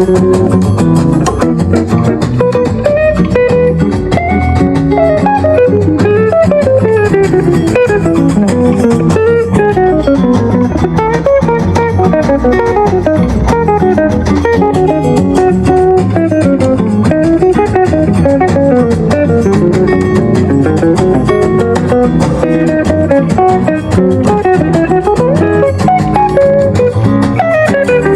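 Acoustic Latin jazz guitar music played at full volume through a JBL Charge 5 Bluetooth speaker: quick runs of plucked notes rising and falling over a steady bass.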